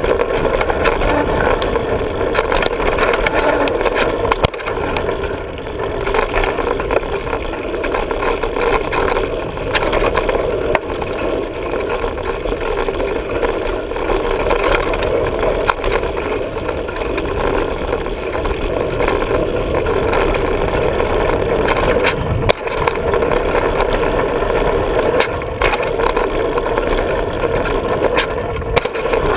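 Diamondback hardtail 29er mountain bike rolling downhill on a dirt trail: a steady rumble of tyres and wind, broken by frequent knocks and rattles as the bike hits bumps, a few of them sharper.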